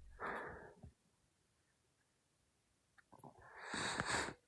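A person breathing close to the microphone: a short breath at the start, then near silence, then a longer, louder exhale near the end.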